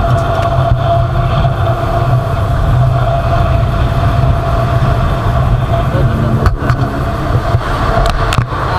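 Motorcycle riding along a road: the engine runs steadily under a heavy, even rumble of wind on the microphone.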